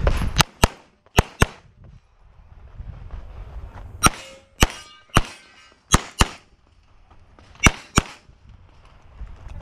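Semi-automatic pistol firing quick pairs of shots, about a dozen in all, in three or four bursts with gaps of a second or two between them.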